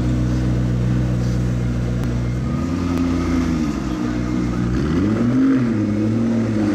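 A car engine running steadily, then about two and a half seconds in its revs rise and fall twice.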